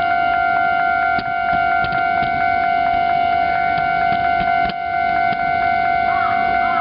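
Japanese railway level-crossing alarm ringing steadily, its electronic bell tones repeating without pause, with a couple of sharp clicks.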